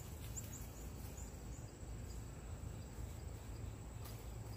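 Quiet outdoor background: a steady low rumble with a faint, steady high-pitched tone, and a few short faint high chirps in the first second and a half.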